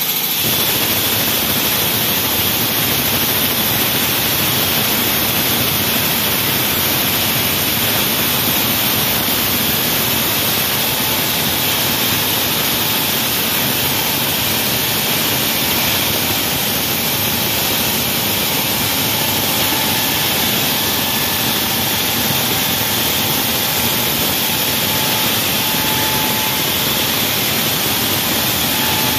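Wall saw running steadily as it cuts through a wall, a loud, even machine noise with no breaks.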